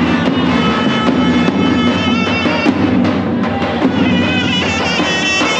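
Loud Turkish folk dance music: a high, ornamented wind-instrument melody over steady drumming.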